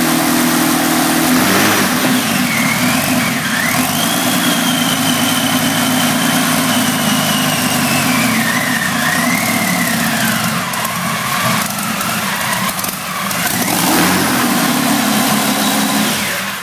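1942 Ranger V12 aircraft engine running on a test stand through short open exhaust stacks with no mufflers. It runs fairly steadily, swells briefly near the end, and then cuts off as it is shut down.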